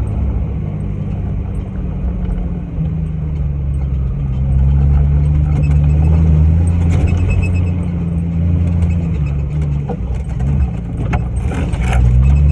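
Off-road 4x4's engine running as it drives, its pitch rising a few seconds in, dipping briefly near the end and climbing again. Scattered rattles and clicks run through it, with a short hiss near the end.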